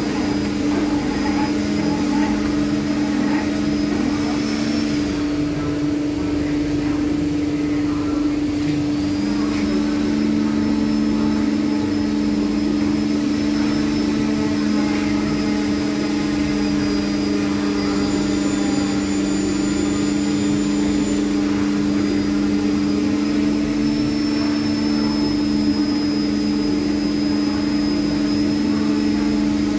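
Felder CF 731 combination machine's 315 mm circular saw running free with no cut: a steady motor hum and a high whine. One of its lower tones dips and recovers about five seconds in.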